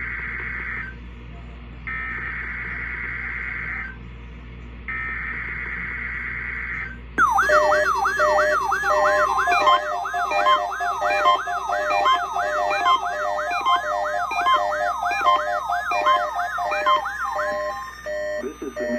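NOAA Weather Radio SAME digital header: three bursts of shrill two-tone data warble, each about two seconds with a one-second gap, marking the start of a Required Weekly Test. About seven seconds in, an electronic alarm-like sound takes over, with a fast repeating up-and-down chirp over steady beeps, until shortly before the end.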